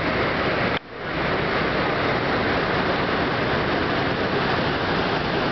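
Steady rushing of falling water from the 9/11 Memorial's waterfall pools. It cuts out abruptly a little under a second in and swells back within half a second.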